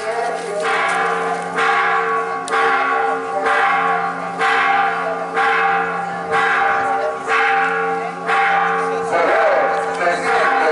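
Church bells ringing, struck steadily about once a second, with their hum held between strikes.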